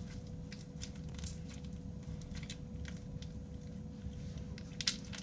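Hands squishing and kneading slime mixed with beads, giving irregular crunchy clicks and crackles, one louder click near the end.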